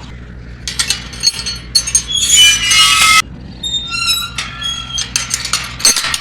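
Glass objects clinking together in a string of sharp strikes with high ringing tones, densest and loudest about two to three seconds in.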